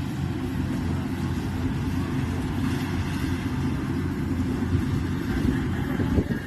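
Rice combine harvester's engine running steadily, a low even hum, with a single knock near the end.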